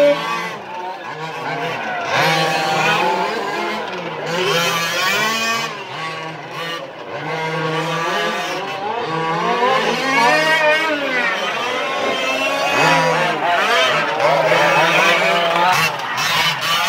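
Several 1:5 scale RC rally cars' small two-stroke petrol engines buzzing around the track, each revving up and down through the corners, with a steady low drone underneath.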